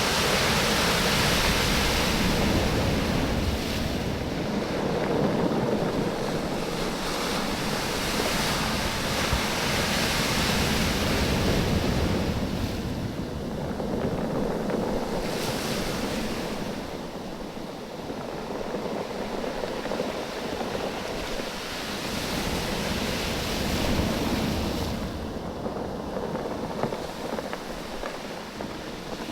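Waves surging in and draining back over a beach of rounded oval stones, the stones knocking and rattling against each other as the water moves them. The wash swells and fades in surges every four to five seconds.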